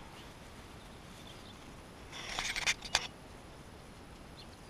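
Brief rustling with a few sharp clicks about two seconds in, from handling a fishing rod among tall grass, over a faint steady outdoor background.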